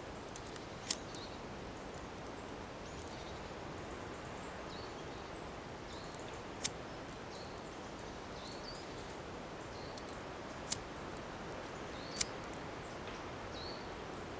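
Four sharp, brief scrapes of a ferro rod struck to throw sparks onto damp moss that does not catch, several seconds apart. Faint small bird chirps over a steady woodland background.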